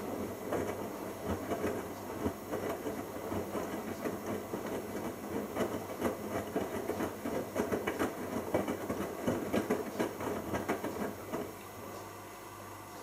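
Bosch Logixx front-loading washing machine tumbling wet laundry in its drum during the wash, an uneven sloshing and clattering that stops about a second and a half before the end, leaving a low steady hum.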